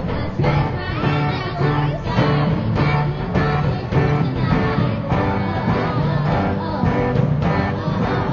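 Rock song played by a band: a girl singing over electric guitar and a steady drum beat.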